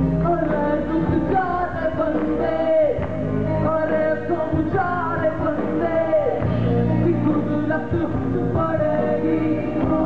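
Live band music: a male lead voice sings a melody with sliding, ornamented notes over steady band accompaniment.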